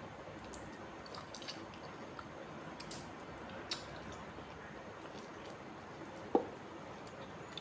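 Wet mouth sounds of someone sucking and chewing juicy orange flesh off the peel: scattered squelches and lip smacks. There are two sharper smacks, one at about three and a half seconds and a louder one a little after six seconds.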